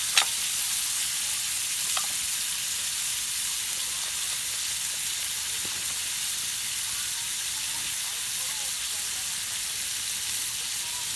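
Food sizzling steadily in a pan over a campfire, an even high hiss, with a sharp click just after the start and a fainter one about two seconds in.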